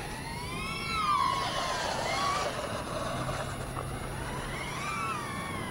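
Brushless motors and propellers of a 5-inch FPV quadcopter weighed down by an oversized 5000 mAh 6S battery, whining as they change speed with the throttle. The pitch rises and falls several times, peaking about a second in and rising again near the end.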